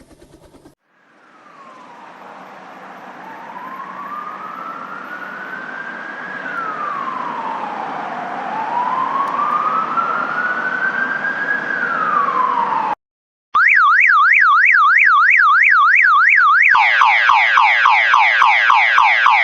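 An emergency-vehicle siren wailing in slow rising and falling sweeps, growing steadily louder as it approaches. After a short break, an electronic alarm starts a fast up-and-down warble and near the end switches to rapid repeated downward sweeps, in the way a car alarm cycles through its tones.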